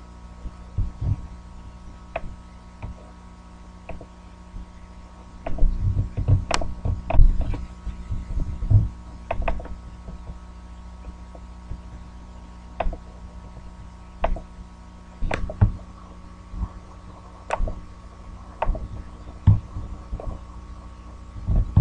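Scattered clicks and low thumps, busiest in a cluster a few seconds in and again later, over a steady electrical hum.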